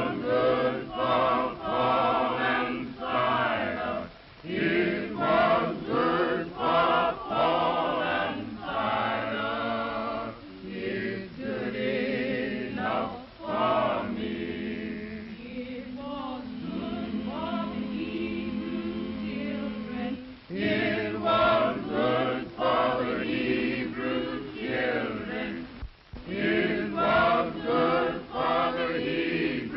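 A choir singing a slow hymn in several voices, phrase by phrase, with short breaths between the lines.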